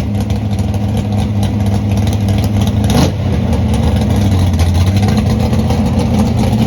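Car engine running steadily at a constant load, with a short sharp click about three seconds in.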